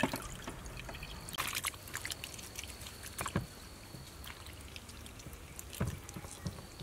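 Water trickling and dripping through a plastic basket into a basin, then hands rubbing soaked black fungus (wood ear mushrooms) in water, with scattered small splashes.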